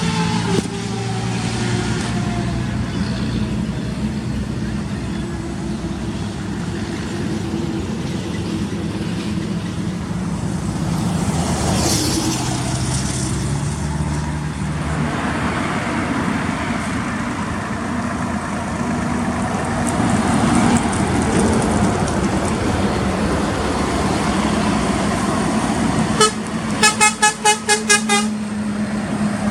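Scania truck's diesel engine running steadily under load. Near the end a horn gives a rapid string of about seven short toots.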